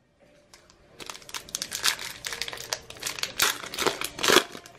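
Trading-card pack wrapper crinkling as it is torn open and handled, in quick irregular crackles that start about a second in.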